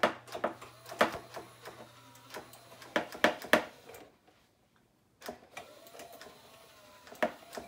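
Spirit Halloween Monty animatronic's motorized jaw working, its teeth slapping together in a series of sharp, irregular clacks over a faint motor whir, with a pause of about a second just after the middle. The teeth should not be clicking at all: a defect that the owner imagines will eventually cause issues with the jaw's electric motor.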